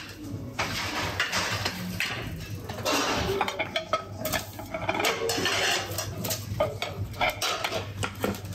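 Metal kitchen utensils and dishes clattering in quick, irregular clicks and knocks, with stretches of scraping, over a steady low hum.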